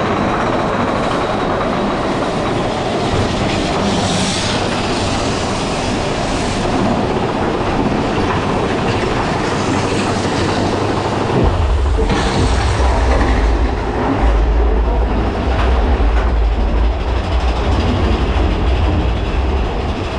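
Big Thunder Mountain Railroad mine-train roller coaster running along its track, its wheels clattering on the rails. About halfway through, a much heavier deep rumble joins in and lasts to the end.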